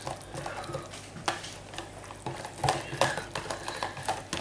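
Thick, hot white sauce being stirred by hand in a bowl so grated cheddar melts in: a utensil scraping and clicking against the bowl at irregular intervals.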